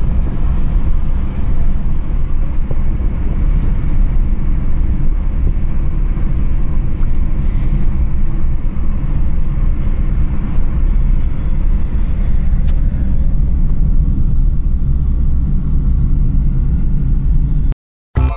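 Steady low rumble of road and engine noise inside a moving car. It cuts off abruptly near the end.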